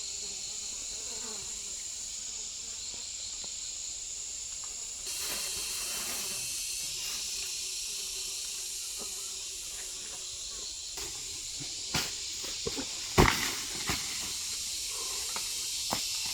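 Insects chirring in a steady high-pitched chorus. A few sharp knocks come near the end, the loudest about two-thirds of the way through.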